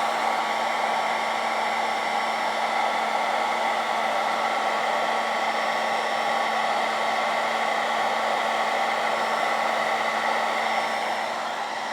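Handheld hairdryer running steadily on high heat: an even blowing noise with a steady motor hum, easing slightly near the end.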